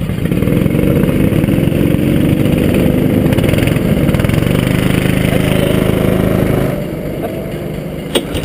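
Go-kart engines running close by, one revving loudly with an unsteady pitch, then dropping to a quieter steady idle about seven seconds in. A short sharp knock near the end.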